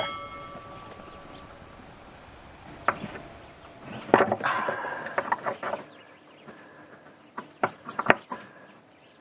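A ringing tone that fades out over about a second and a half, then scattered knocks, clicks and rustling of hands working on fittings inside a boat's cockpit propane locker.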